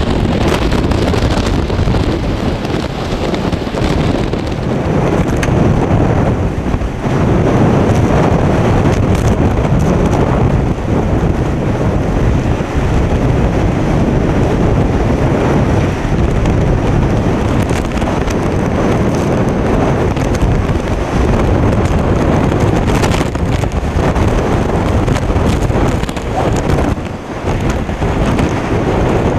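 Hurricane-force wind with driving rain, a loud continuous rush that buffets the microphone, easing briefly near the end.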